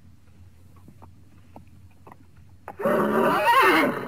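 A quiet stretch with a few faint knocks, then nearly three seconds in a horse whinnying loudly, a quavering call that rises and falls in pitch.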